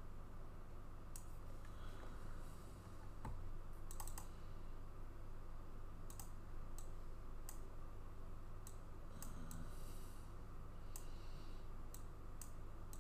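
Faint, irregularly spaced clicks of a computer mouse and keyboard, about a dozen, with a couple of brief soft rustles, over a steady low hum.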